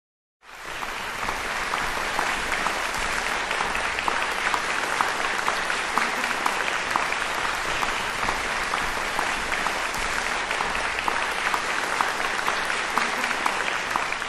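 Concert-hall audience applauding: dense, steady clapping that starts abruptly about half a second in.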